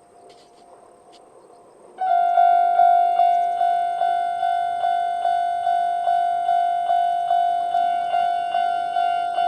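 Japanese level-crossing warning bell, the old-type standard electronic tone, starts suddenly about two seconds in and rings at a fast, even pace of a little over two dings a second, the signal that a train is approaching.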